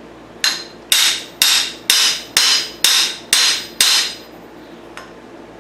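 A steel hammer strikes the steel flywheel of a pressed-together motorcycle crankshaft eight times, about two blows a second, and each blow rings briefly. The blows knock the flywheels into line to true a crank that is out of straight.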